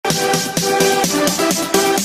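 Upbeat electronic intro music, with synth chords changing in short even steps about four times a second over a steady beat.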